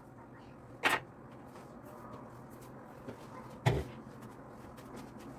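Two sharp knocks, about three seconds apart, over a faint steady background: things set down on a wooden kitchen table while khinkali are being shaped.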